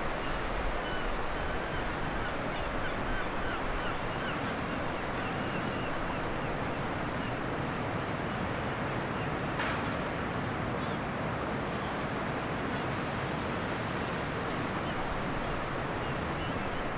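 Steady rushing of Baltic Sea surf mixed with wind, with one short click a little under ten seconds in.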